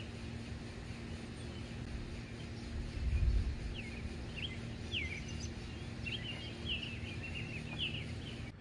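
Birds chirping in short, quick repeated calls, over wind rumbling on the microphone that swells about three seconds in, with a steady low hum underneath.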